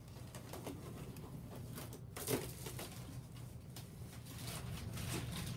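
A cardboard shipping box being opened by hand: tape tearing and cardboard and packing material rustling and crinkling in short scattered bursts, the loudest about two seconds in, over a low steady hum.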